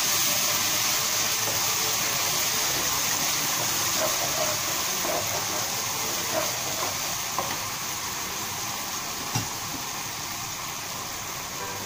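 Chili sauce and oyster sauce sizzling in hot oil in a non-stick wok while being stirred with a wooden spatula: a steady hiss that slowly dies down, with a few light knocks of the spatula on the pan in the second half.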